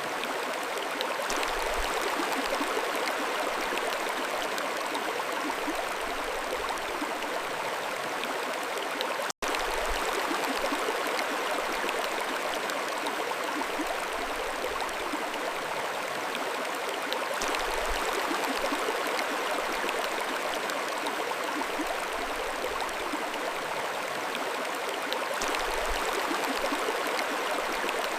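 Mountain stream flowing, a steady rush of running water, with a momentary cut-out about nine seconds in.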